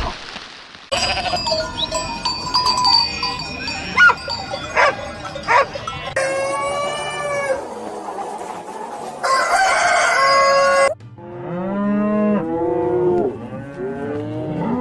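A run of farm animal sounds: cowbells clanking among livestock, a drawn-out call that fits a rooster crowing, and from about 11 seconds in a series of cattle mooing.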